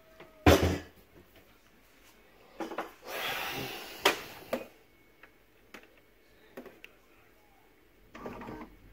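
Household handling noises: a sharp knock about half a second in, then a rushing noise lasting about a second and a half that ends in two sharp clicks, a few small scattered clicks, and a short rustle near the end.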